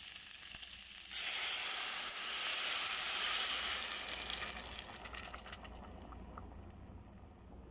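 Blended chile-and-tomato salsa poured over pork ribs in a hot pan: a loud sizzle and hiss starts about a second in and dies away over the next few seconds.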